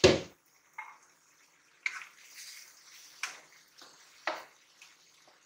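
A pan lid clanks as it is lifted off the wok. A spatula then stirs through the soft cooked tomatoes, knocking against the pan four or five times, about once a second.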